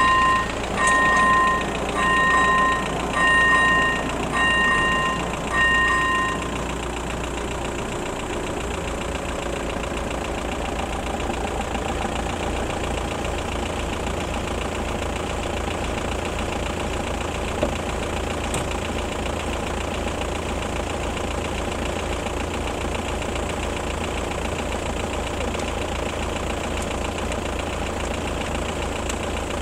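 Electric warning bell of a level crossing (AŽD ZV-01) sounding in short pulses a little over once a second, falling silent about six seconds in once the barriers are down. After that, the engine of a car waiting at the crossing idles steadily.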